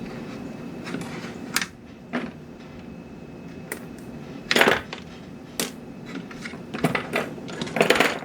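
Clicks, knocks and clatter of small hard parts being handled and set down, loudest in short clusters near the middle and toward the end. A steady low hum stops about one and a half seconds in.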